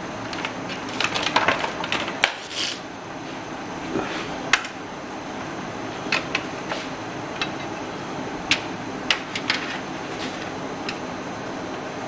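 Irregular sharp clicks and light taps of cables and plastic parts being handled inside a computer case, a quick flurry near the start and then single clicks every second or two, over a steady low background hum.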